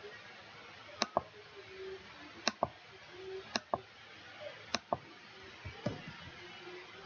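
Computer mouse clicking four times, roughly once a second, each click heard as a pair of sharp snaps close together, with a few fainter ticks near the end.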